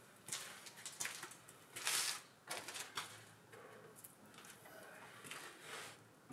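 Faint rustling, knocking and scraping as a painted wooden wall panel is handled and set into place, with a short louder scrape about two seconds in.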